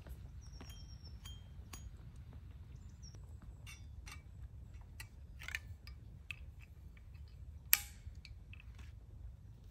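Small clicks and rustles of a spoon and a food pouch being handled, with one sharp clink just before the end. A few faint bird chirps are heard in the first few seconds over a low outdoor rumble.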